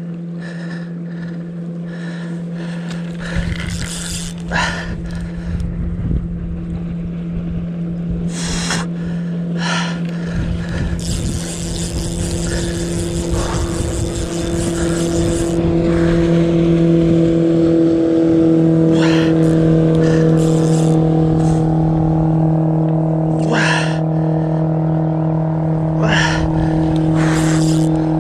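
A motor engine hums steadily and grows louder partway through, with scattered clicks and handling knocks over it and a spell of hiss about eleven seconds in.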